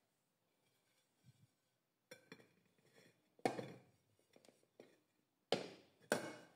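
A ceramic plate and a bundt cake pan being handled on a stone countertop: after a near-silent start, a series of about seven sharp knocks and clinks, the loudest about a second and a half in from the first and again near the end.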